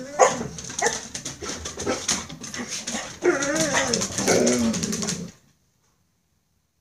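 A dog whining and yelping in irregular, rising and falling cries, which cut off suddenly about five seconds in.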